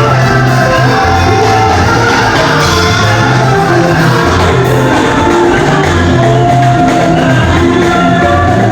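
Loud music with singing over a bass line that moves from note to note.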